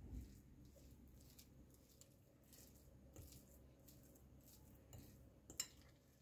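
Faint scraping and tapping of a metal fork mashing a butter and egg-yolk dough mixture against the sides of a glass bowl, in a run of short strokes, with one sharper click of the fork on the glass about five and a half seconds in.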